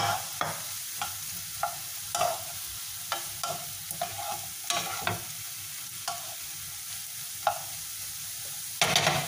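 Sliced mushrooms and onions sizzling as they sauté in a frying pan, stirred with a wooden spatula that scrapes and knocks against the pan every half second or so, with a louder flurry of stirring near the end.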